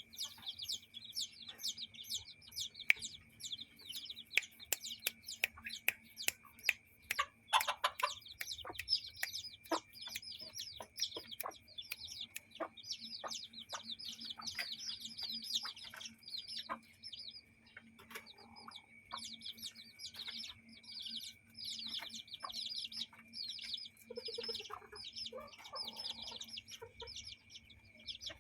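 Chicks peeping rapidly and continuously in high notes, with a hen clucking in lower calls, mostly near the end, and scattered sharp clicks. A faint steady high tone and low hum lie underneath.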